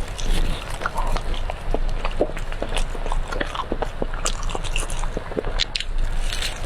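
Close-miked chewing and biting of brown sugar cake: a steady run of many small mouth clicks.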